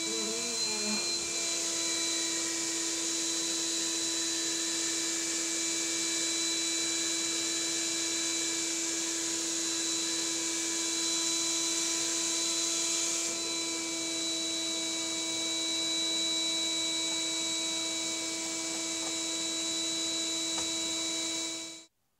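Vacuum cleaner running steadily, a constant motor whine over airflow hiss, cutting off abruptly near the end.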